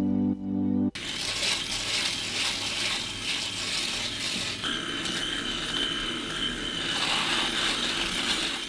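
Soft background music cuts off about a second in. An electric shaver then runs steadily as it is moved over the chin and jaw, rasping against the beard.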